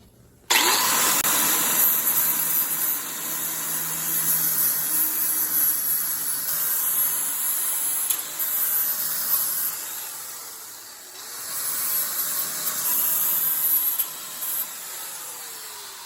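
Handheld power grinder cleaning up the sheet steel of a Model A cowl: a loud, steady grinding hiss that starts abruptly about half a second in and rises and falls as it is worked against the metal. Near the end the tool is let off and its whine falls as it spins down.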